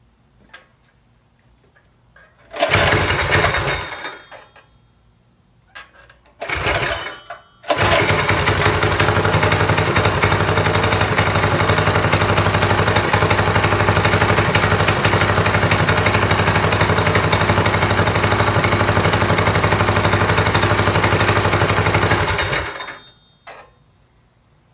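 Modified Predator 212 single-cylinder engine on a mini bike (racing cam, aftermarket exhaust, governor removed) being started: two short bursts of running that die, then about eight seconds in it catches and runs steadily with a loud exhaust for about fifteen seconds before stopping.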